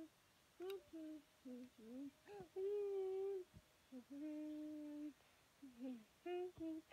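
A child humming without words: short notes rising and falling, two long held notes about two and a half and four seconds in, then short notes again near the end.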